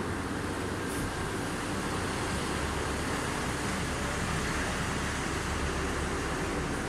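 A diesel truck's engine running as it drives past, a low rumble that swells in the middle, over steady yard noise.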